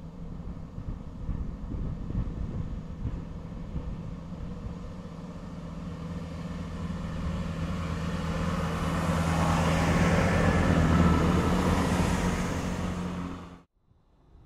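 Class 165 diesel multiple unit passing along the platform: its underfloor diesel engines hum steadily, joined by wheel-on-rail noise. It grows louder as the train draws level and goes by, then cuts off suddenly near the end.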